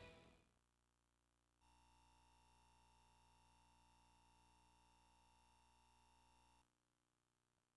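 Near silence: the tail of music fades out at the start, then a faint, steady electronic tone hums for about five seconds from a second and a half in, and stops before the end.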